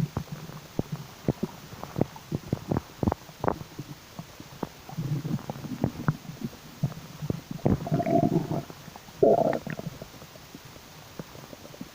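A person's stomach rumbling and gurgling: low, rolling grumbles broken by many short pops and squelches, with louder gurgles about two thirds of the way through.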